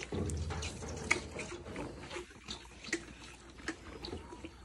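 Calf sucking milk from a hand-held feeding bottle: irregular wet slurping and smacking at the teat.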